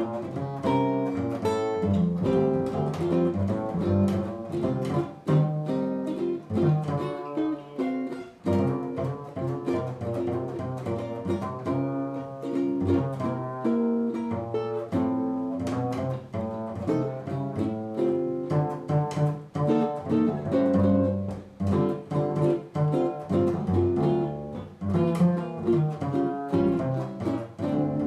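Jazz guitar and double bass duo playing live: a hollow-body archtop electric guitar picks a line of notes over upright double bass plucked pizzicato.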